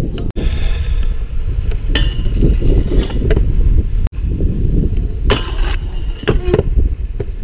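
Stunt scooter riding on a skatepark: wheels rolling and clattering over a heavy low rumble, with sharp knocks of landings and a louder scraping stretch about five seconds in. The sound drops out for an instant twice.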